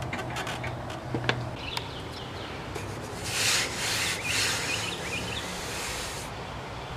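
A hand rubbing and sliding across the top of a spray-painted radio cabinet: a few light knocks near the start, then two short swishes a little past the middle.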